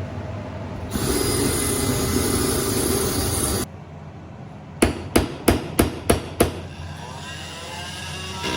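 A small drill sanding around rivets on the bus's metal roof, running for nearly three seconds and then stopping abruptly. About a second later there is a quick run of six sharp knocks, about three a second.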